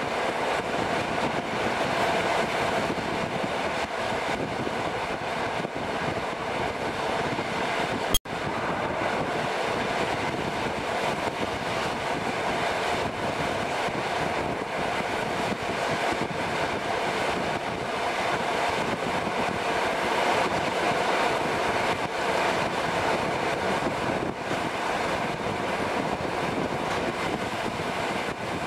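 Passenger train running along the line, heard from an open window: a steady rumble of wheels on rail with the rush of passing air. About eight seconds in there is one sharp click, and the sound drops out for a split second.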